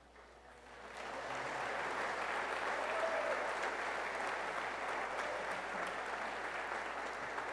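Church congregation applauding, swelling over the first second and then steady, as a baptism by immersion is completed.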